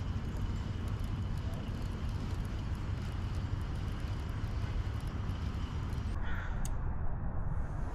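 Steady low rumble, with the faint fine ticking of a spinning reel being cranked through a lure retrieve, and a single crow caw about six seconds in.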